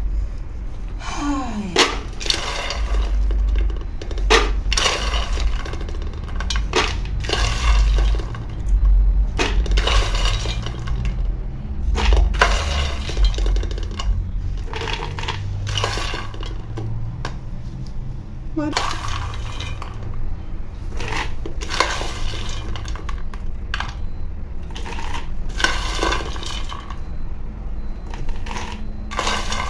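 Roasted peanuts scooped with a wooden spoon from a non-stick pan and tipped into a plastic jar: repeated bursts of rattling and clattering nuts with spoon scraping against the pan, every second or two.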